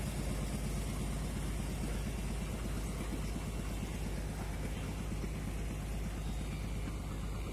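Engine of a wheeled mobile crane running steadily, a fast even low pulsing, while the crane holds a large steel tank suspended on its hook.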